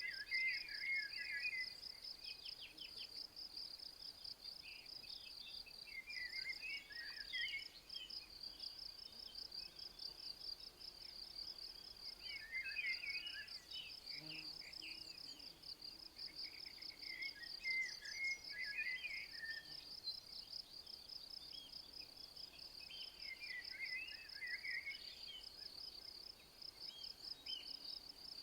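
Insects keep up a continuous high, finely pulsed trill. A songbird sings a short phrase about every five to six seconds over it.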